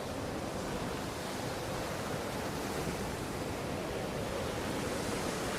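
Snowstorm wind blowing steadily, a constant rushing noise with a faint wavering whistle in it.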